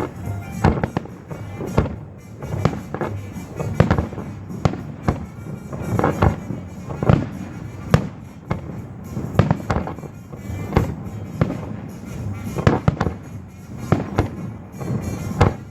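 Aerial fireworks going off in rapid succession, many sharp bangs and crackles close together, over music played for the display.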